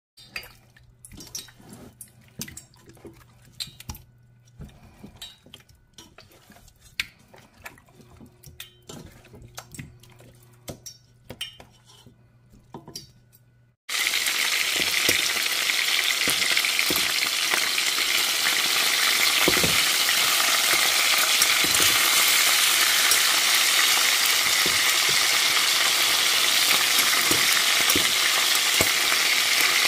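Faint wet squelches and small clicks of a hand working marinated chicken pieces in a pot, over a low steady hum. About halfway through it cuts suddenly to loud, steady sizzling of chicken drumsticks frying in hot oil, with a few knocks of a utensil in the pan.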